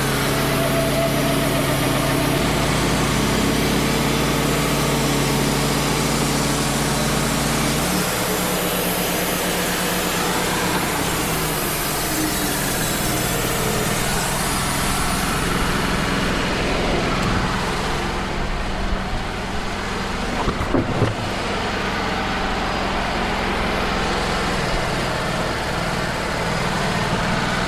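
Wood-Mizer LT35 portable sawmill running steadily, its engine note shifting lower about eight seconds in, with a few knocks around twenty seconds in.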